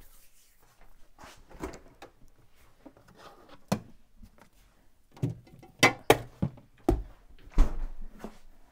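Knocks and thuds of a Magic Chef compact refrigerator door being opened and shut while a food container is taken out. The loudest thumps come in a cluster over the second half.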